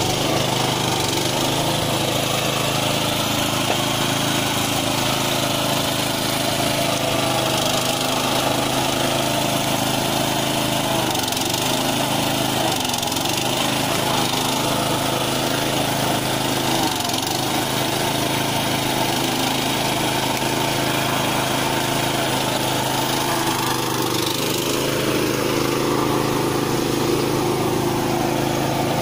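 Small engine driving a hydraulic log splitter, running steadily, with a brief shift in pitch about 24 seconds in.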